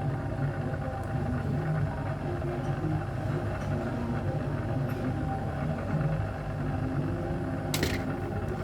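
A steady machine hum with a low drone, and one sharp click near the end.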